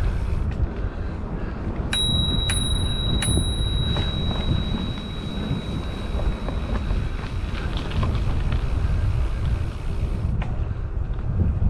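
Bicycle bell struck three times in quick succession about two seconds in, its ring fading over the next few seconds, over a steady low rumble of wind on the microphone while riding.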